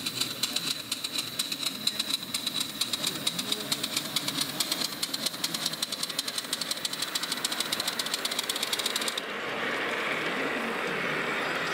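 Live-steam model locomotive working a passenger trolley, its exhaust beating in quick, even chuffs as it runs. About nine seconds in, the chuffs stop abruptly and a steady rushing noise takes over.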